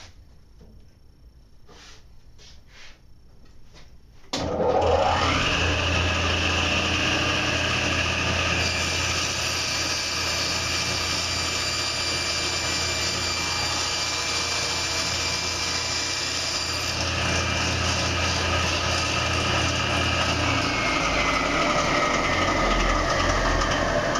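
A table saw's motor is switched on about four seconds in and its whine rises quickly to full speed. It runs steadily while a board is ripped to width, with an added hiss of blade cutting wood through the middle. Near the end the saw is switched off and the blade winds down with falling pitch.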